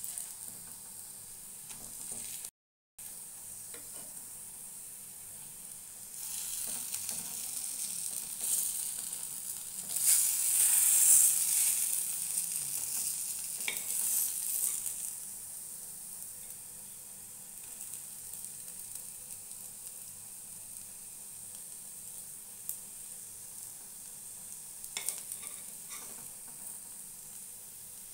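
Food sizzling as it fries in hot oil in a pan, with a few clicks of a utensil stirring it. The sizzle swells louder for several seconds around the middle.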